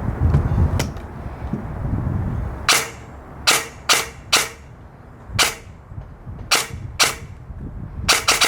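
Custom EMG SAI GRY airsoft electric rifle (AEG) with a 13:1 gearbox and high-speed motor firing single semi-auto shots, about seven sharp cracks at uneven spacing, showing its near-instant trigger response. Just before the end it switches to a rapid full-auto burst.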